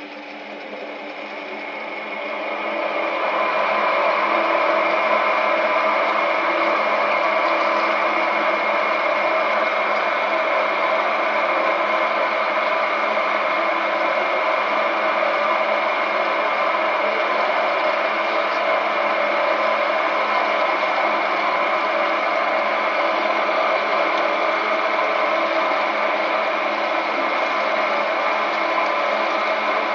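Hydraulic auto-feed drilling machine with a four-spindle drilling head running, its drills cutting into the workpiece. The sound builds over the first three seconds or so, then holds as a steady loud whine.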